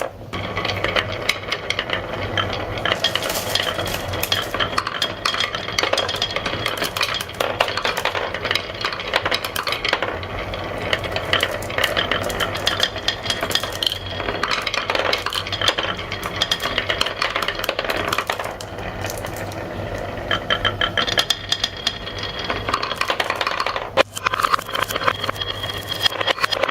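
Many marbles rolling and clattering down a marble run track, a dense, continuous rattle of small clicks and clinks with a brief break near the end.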